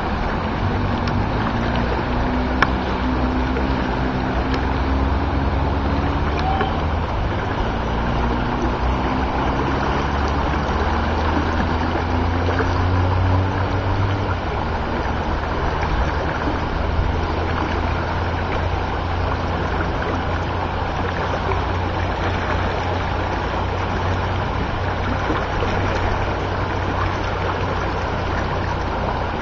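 Steady rush of fast-flowing floodwater mixed with a low rumble. Through the first half a faint hum twice rises slowly in pitch.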